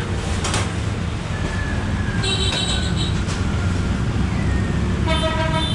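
Steady street-traffic rumble with two short vehicle horn toots, one about two seconds in and one near the end.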